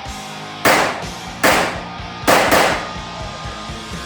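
Three pistol shots fired just under a second apart, each a sharp crack with a short ringing decay, over background music.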